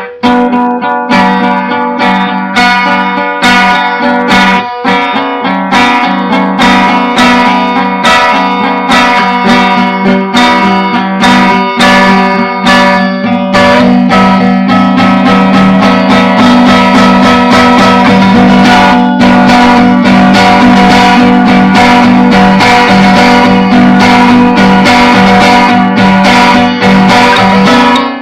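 Acoustic guitar being strummed in an improvisation, with a steady low note ringing under rapid strums that grow denser and more continuous about halfway through. Recorded very loud through a webcam microphone, so the sound is harsh and of very bad quality.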